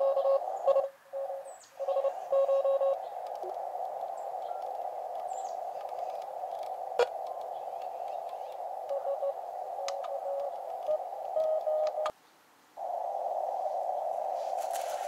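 Shortwave receiver audio from a YouKits HB-1B QRP CW transceiver played through a small portable speaker. It is a steady band of hiss through the narrow CW filter, with a Morse code signal keyed on a steady tone for the first few seconds and weaker bits of code again later. A click sounds about halfway, and the audio cuts out briefly near the end.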